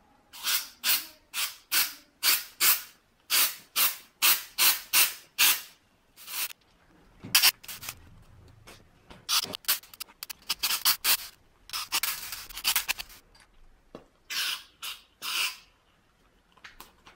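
Aerosol can of silicone-based lubricant sprayed in many short bursts, about two a second, with one longer spray of about a second some twelve seconds in.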